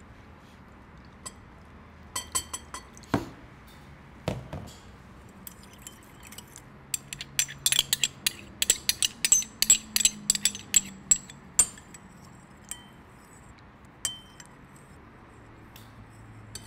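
Metal spoon clinking against a ribbed glass bowl and a small ceramic cup while a soy and oyster sauce mixture is made. There are scattered clinks and a couple of dull knocks at first, then rapid clinking for several seconds in the middle as the sauce is stirred, then a few single taps.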